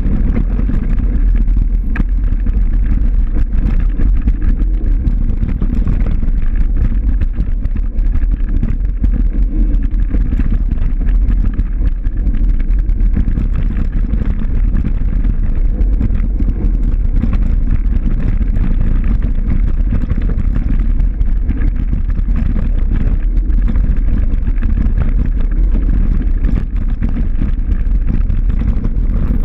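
Loud, steady wind rumble buffeting the microphone during fast movement, with scattered faint clicks and rattles.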